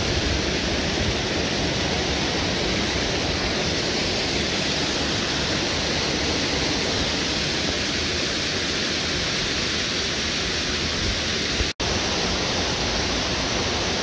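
Waterfall pouring over rock ledges into a pool, heard up close as a steady, loud rush of water. The sound cuts out for an instant near the end.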